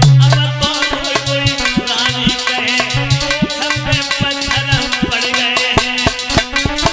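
Instrumental Indian folk music: fast hand-drum beats and rattling shaker-like percussion over sustained melody tones, with a pulsing low bass note.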